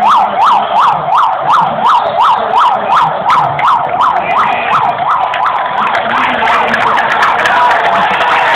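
Electronic siren in a fast yelp, sweeping up and down about three and a half times a second, then blurring into a steadier wail in the second half.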